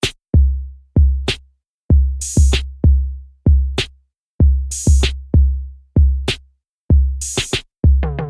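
Background music with a beat of deep bass-drum thuds and sharp snare-like hits, about two hits a second. A bright cymbal-like splash comes about every two and a half seconds, and a falling pitched sound enters near the end.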